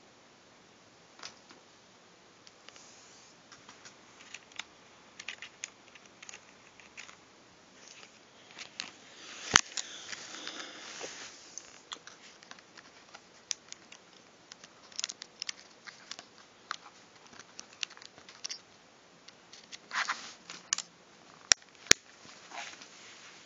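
Hands handling a Nook Tablet and a microSD card: scattered small clicks and light rustles, with a sharper click about ten seconds in and two more near the end.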